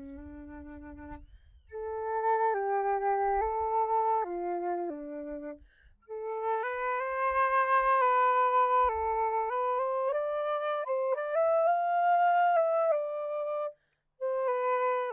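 A single wind instrument playing a slow melody of held notes, with short breaks between phrases.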